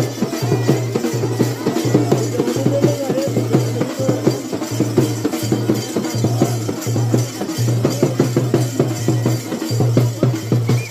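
Bhaderwahi dhol drumming in a fast, steady rhythm, with a wavering tune over the drums.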